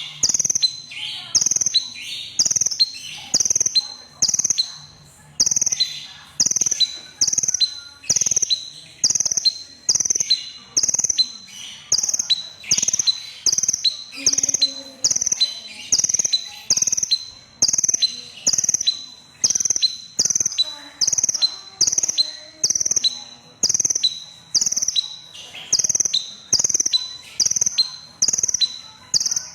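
Red-breasted kolibri ninja sunbird calling without pause: a short, sharp, high chirp repeated evenly about one and a half times a second.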